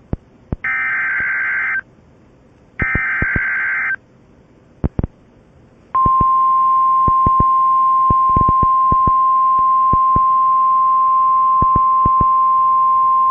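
NOAA Weather Radio Emergency Alert System signal. It opens with the last two of three SAME digital header bursts, buzzy data squeals about a second long each. After a short pause with radio static crackles, the steady 1050 Hz warning alarm tone begins about six seconds in, announcing the next severe weather warning.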